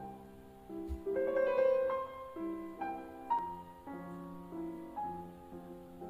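Soft solo piano music: a slow, gentle melody of single notes that ring and fade.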